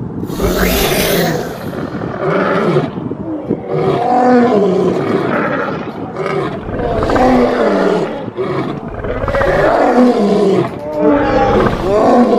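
Dinosaur roar sound effects: a continuous run of overlapping animal roars, each call rising and falling in pitch, one after another every second or two, with a noisy hiss about half a second in.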